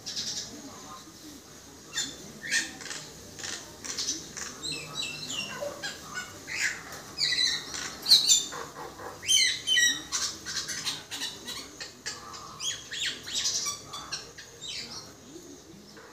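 Common myna calling: a long, busy run of varied short whistles, squawks and chattering notes, starting about two seconds in, the loudest about halfway through.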